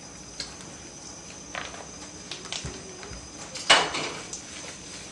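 Kitchen handling noises as a dry baking mix is poured into a mixing bowl: a few light knocks, then one louder clatter about three and a half seconds in.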